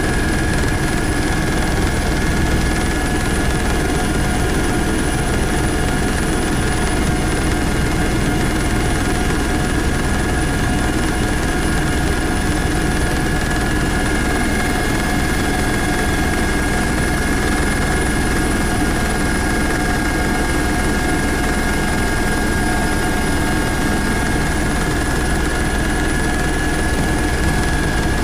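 Helicopter in level flight heard from inside the cabin: a loud, steady rotor and engine noise with a constant high whine over it.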